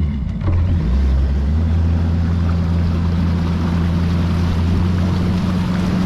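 Bass boat outboard motor running up to speed about a second in, then holding a steady drone, with wind and water rushing past the hull.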